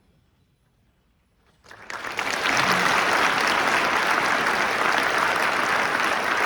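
Audience applauding, breaking out suddenly after a hushed pause of under two seconds as the last choral note dies away, then holding steady.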